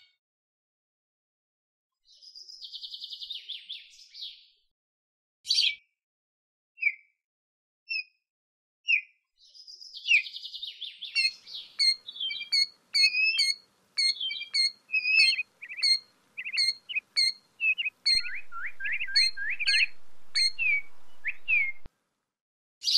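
Killdeer calling: two short buzzy trills, then single high notes that quicken into a long run of rapid, sliding call notes.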